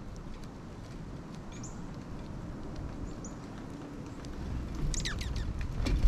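Wind rumbling on the microphone in strong gusts, swelling near the end, with a few short high chirps from small birds at a feeder and scattered light clicks. Just before the end comes a quick cluster of falling high notes.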